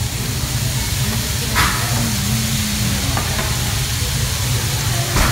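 Food sizzling on a hibachi teppan griddle over a steady low hum, with two brief clatters, about a second and a half in and near the end.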